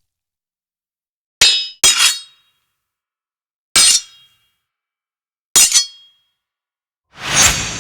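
Sword sound effects: sharp metal blade clangs with short ringing, two in quick succession, then two single ones a couple of seconds apart, with dead silence between. Near the end a longer swelling clash rings out slowly.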